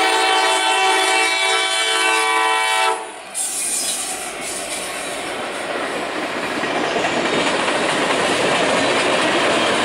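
Multi-tone air horn of a leading EMD SD70ACe diesel locomotive sounding a loud steady chord for a grade crossing, cutting off about three seconds in. The locomotives then pass close by, with diesel engine noise and wheels rolling on the rails, growing louder toward the end as the second unit, a GE AC44CW, goes by.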